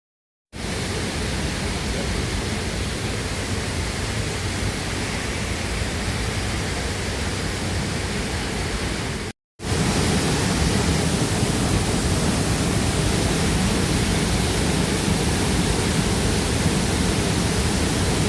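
Steady rushing of a waterfall, in two takes cut together: it breaks off briefly about nine seconds in and comes back louder.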